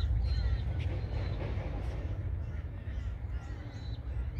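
A bird calling, over a steady low rumble.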